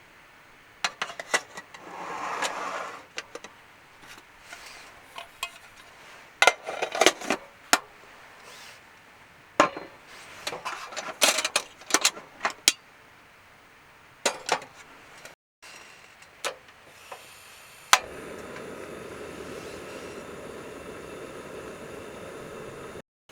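Camp cookware and utensils being handled: a series of sharp clinks and knocks. About three-quarters of the way in, a steady rushing noise takes over.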